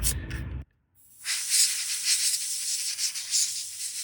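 Rapid scrubbing of an alcohol-wetted circuit board with a swab, a fast rough rubbing hiss. It breaks off just after half a second in, drops to silence, and the dense scrubbing resumes about a second in.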